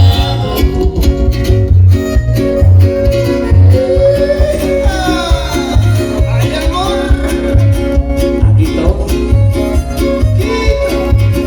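Loud music with guitar and a steady, heavy bass beat, with sliding melody lines about halfway through.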